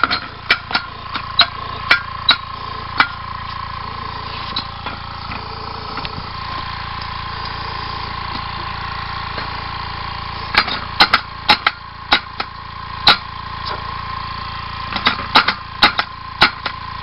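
Homemade compressed-air engine, a weed whacker engine with a sewing-machine flywheel, turning over in short spurts: three clusters of sharp knocks a few per second, over the steady run of an airbrush compressor with a steady tone. It turns over only a few times and does not keep running; the builder suspects the length of the pin in the tube or the flywheel.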